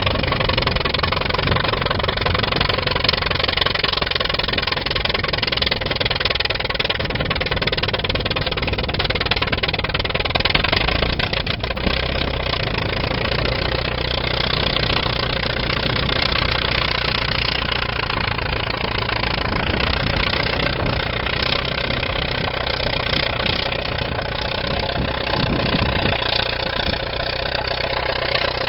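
Engine of a 1931 Allis-Chalmers crawler bulldozer running steadily.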